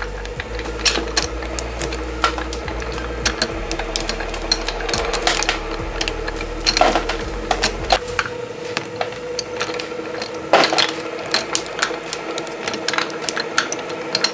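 Small twin-shaft shredder running with a steady hum as its hook cutters chew up a toy animal figure. Irregular clicking and crunching, with a few loud cracks as the figure breaks apart. A low rumble drops out about halfway through.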